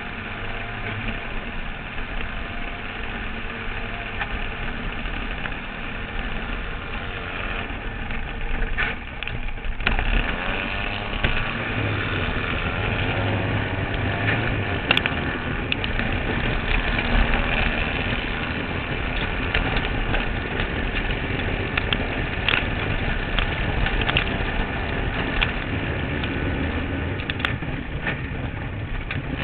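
Kart cross engine running under load, heard through an onboard camera mounted on the buggy, with scattered sharp knocks and rattles from the chassis as it goes over the dirt track.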